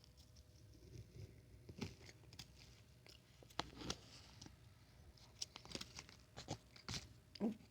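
A person chewing a mouthful of blueberry cake, with soft scattered mouth clicks and small crunchy sounds.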